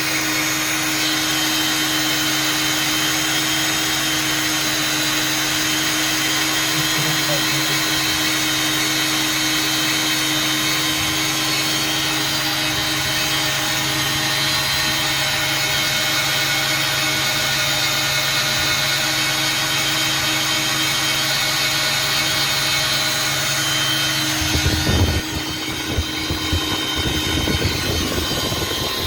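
Construction machinery running with a steady, unchanging drone and hum. About 25 seconds in, uneven low rumbles and knocks take over.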